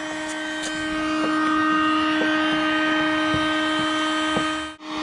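Electric heat gun running with a steady hum and whine, melting the plastic of a kayak hull for a weld repair. A few faint clicks sound over it.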